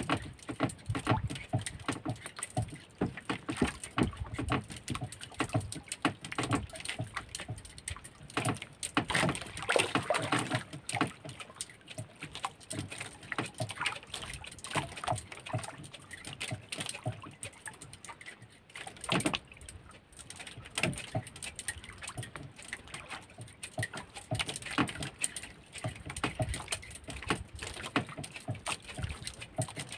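Small fishing boat at sea: irregular knocks and taps on the hull with splashing water, during handline fishing for skipjack tuna.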